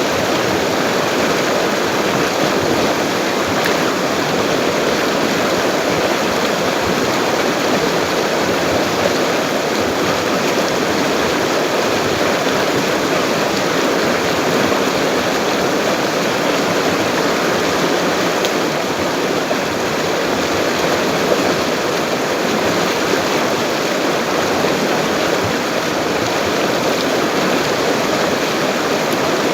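A full-flowing river rushing steadily, an even wash of water noise without let-up.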